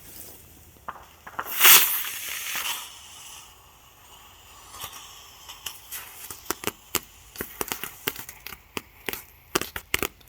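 Consumer firework going off: one loud burst about two seconds in, with a hissing tail, then a run of sharp crackling pops that comes faster and thicker toward the end.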